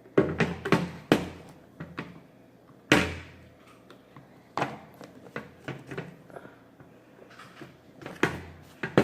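Irregular knocks and clicks, about ten of them, from slime and plastic slime containers being handled and set down.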